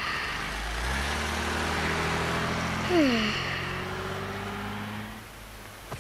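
A motor vehicle's engine hum that swells about a second in and fades away near the end, with a short falling tone about three seconds in.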